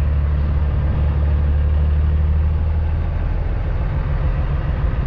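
Cummins ISX diesel engine of a 2008 Kenworth W900L heard from inside the cab as the truck moves slowly. It is a steady low drone that turns rougher and less even about three seconds in.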